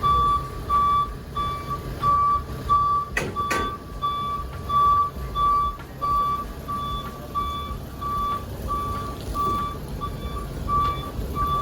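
Vehicle backup alarm beeping steadily, about one and a half beeps a second, over a low engine rumble. Two sharp knocks a little over three seconds in.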